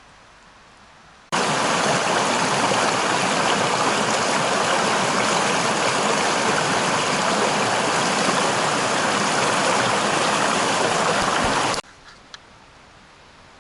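River water rushing, a loud steady wash that starts and stops suddenly.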